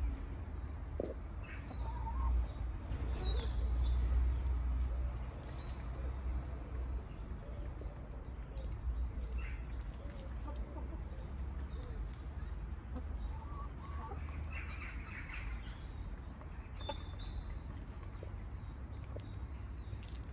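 Domestic hens clucking quietly as they move about and peck, with scattered short high chirps. A low rumble underneath is loudest a few seconds in.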